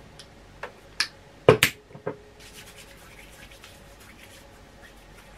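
Several sharp clicks from handling a small flip-top plastic bottle of hand gel, the loudest two in quick succession about a second and a half in. Then hands rub together with a faint, steady swishing.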